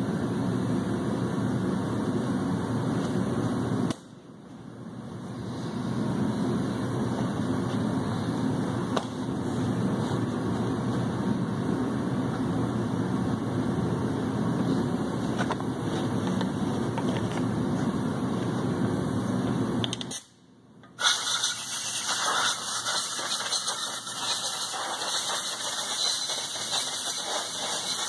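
Compressed air from a blow gun cleaning off a crankshaft: a steady rush of air that cuts out about four seconds in and builds back up, stops briefly near twenty seconds, then comes back after a click as a thinner, higher hiss.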